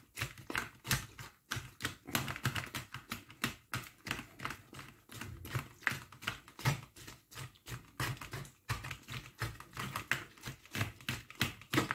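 Wooden pestle pressing and pounding lemon pieces in a stainless-steel mesh sieve over a plastic bowl: a quick, irregular run of knocks and taps, several a second.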